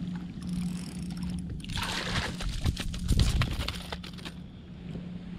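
Water splashing and sloshing as a hooked flathead is scooped into a landing net beside a kayak, loudest about two to three seconds in.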